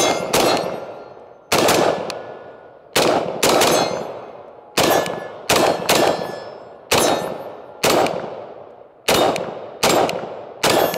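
Daniel Defense DD4 M4A1 RIII 5.56 rifle firing about thirteen shots at an uneven pace, singles and quick pairs, each shot echoing away. Steel targets ring on the hits.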